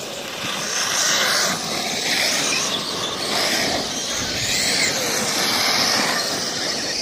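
Brushless electric RC off-road cars driving on a dirt track, their motors whining up and down in pitch over steady tyre and dirt noise.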